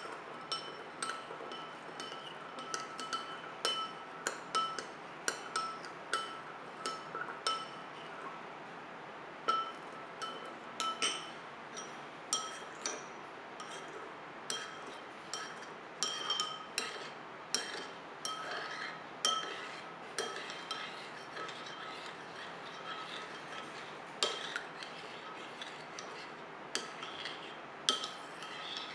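Metal spoon stirring liquid citrus jelly in a white ceramic bowl, clinking against the bowl's sides again and again at an irregular pace, about one or two clinks a second. Each clink rings briefly with a clear tone.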